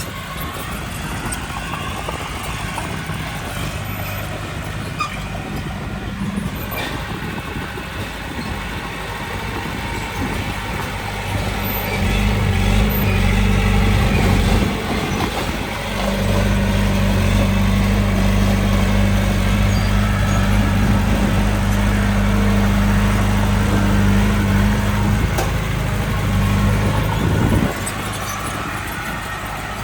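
Diesel engine of heavy earthmoving machinery running steadily, then working harder: it grows louder about twelve seconds in, dips briefly, runs loud again, and drops back near the end.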